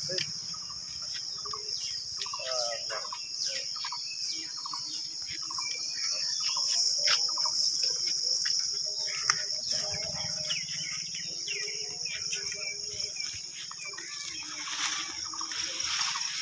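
Steady, high-pitched chirring of insects, with faint voices of people in the background and a single sharp click about nine seconds in.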